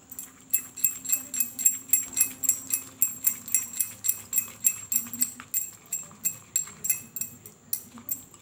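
Plastic spatula beating Oreo biscuit cream with ghee and sugar in a cut-glass bowl: quick, even clicking and clinking against the glass, about three to four strokes a second.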